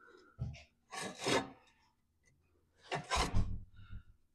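Short scraping and rubbing sounds, in three brief bouts, as a metal deck-link pin is worked against the front-axle hole of a 1989 Craftsman all-wheel-steer lawn tractor. The hole is packed with grit and dead grass, so the pin will not go through.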